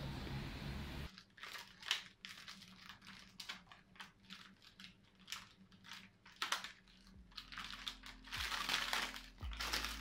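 Brown paper fish packet crinkling and rustling as it is handled on a plastic cutting board: a run of short, sharp crackles that grows denser and louder near the end. For about the first second there is only a steady outdoor background hiss.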